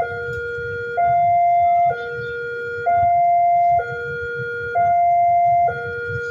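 Railway level-crossing warning alarm sounding a steady two-tone hi-lo signal, each tone held about a second, the higher tone the louder. It warns that a train is approaching.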